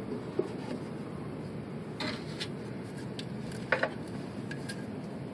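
A few light, sharp clicks and taps, as of small parts or tools being handled, spaced irregularly over a steady low background noise.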